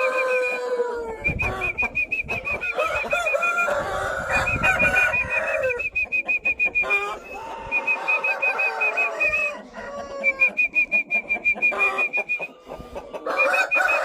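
A flock of Aseel chickens clucking and calling, with drawn-out falling calls like crowing among them. Over it runs a fast, high-pitched chirping that comes in runs of a second or two.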